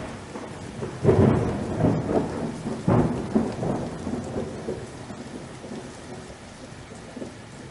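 Thunder over steady rain: two loud rolls, about a second in and about three seconds in, each slowly dying away over the hiss of the rain.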